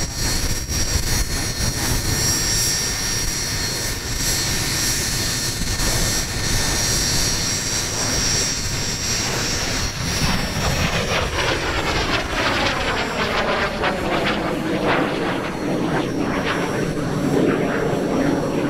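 Fouga CM.170 Magister's twin Turbomeca Marboré turbojets whining in flight overhead. From about halfway the sound sweeps down in pitch as the jet passes close.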